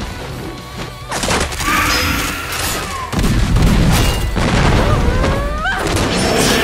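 Fight-scene soundtrack: music under rapid gunfire and heavy booming impacts, with a few sliding high-pitched sounds.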